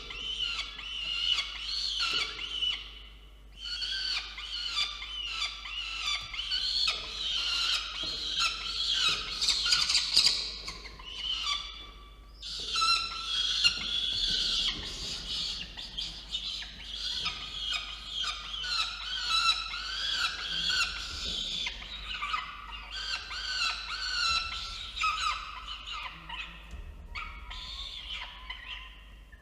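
Peregrine falcon chicks giving high, wavering food-begging screams almost without pause while an adult feeds them, with two short breaks, about three and twelve seconds in.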